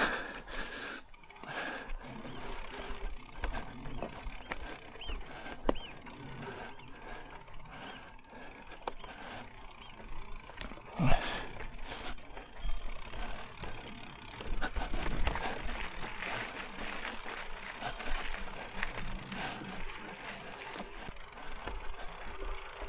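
Electric mountain bike clattering over rough trail on a steep descent: irregular knocks and rattles from the bike and tyres. There is a loud knock about halfway through and denser clattering in the second half.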